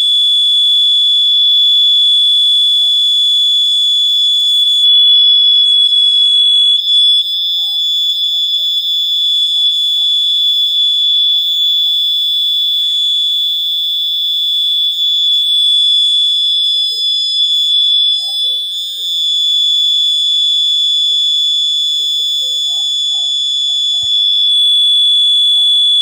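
A homemade fire alarm's buzzer sounding one loud, steady, high-pitched tone without a break.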